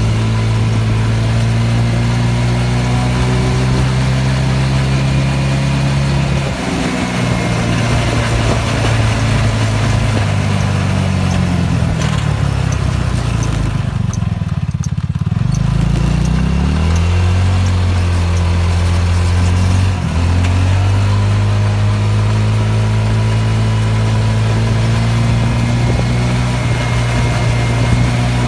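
Go-kart engine running steadily under way. About ten seconds in its pitch falls as the kart slows almost to idle, then it picks up speed again and runs on at a steady pitch.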